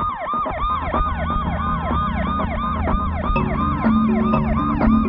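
Ambulance siren in a fast yelp, each sweep rising and falling about four times a second. Low sustained music notes come in under it about three seconds in.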